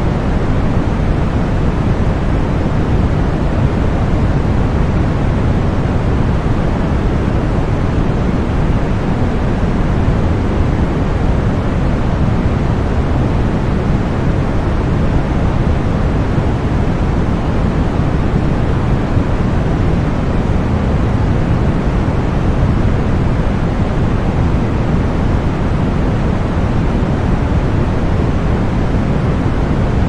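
Steady generated masking noise, an unbroken rushing hiss weighted toward the low end with little above 8 kHz, and no change in level or character.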